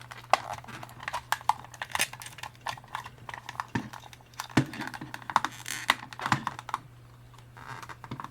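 Plastic clips and housing of a Toyota Corolla dash clock clicking and creaking as the case is unclipped and pried apart by hand: many sharp, irregular clicks, with a quieter spell about three-quarters of the way through.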